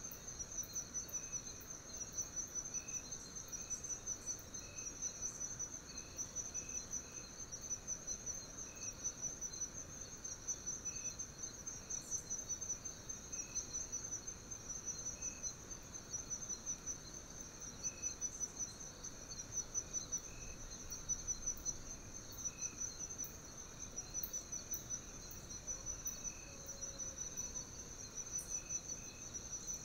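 Insects chirring: a steady, high, fast-pulsing trill that never breaks, with softer short chirps repeating about once or twice a second lower down.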